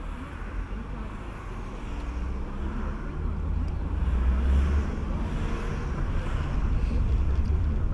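Car engine and road noise heard from inside the cabin: a low rumble that grows louder as the car pulls away and gathers speed.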